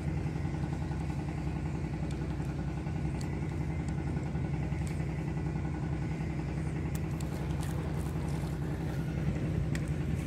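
An engine running steadily at an even speed, a low drone that holds unchanged throughout, with a few faint ticks over it.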